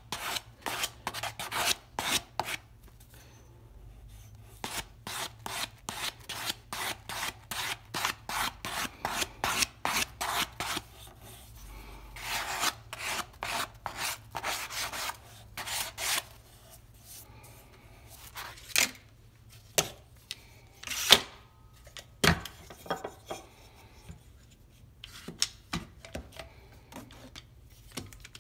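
Sandpaper wrapped on a soft sanding sponge rubbing back and forth on a rosewood plane tote horn: quick, regular strokes about three a second for the first half, then a few longer strokes and scattered single strokes.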